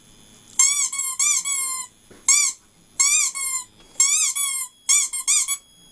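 Squeaky dog toy played back through a speaker: quick runs of two to four high squeaks, each one rising then falling in pitch.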